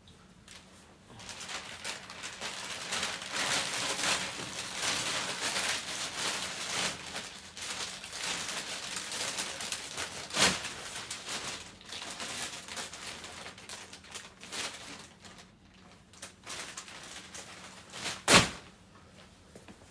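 Rustling and handling noise, a dense crackly shuffle like things being moved about, with a sharp knock about halfway through and a louder knock near the end.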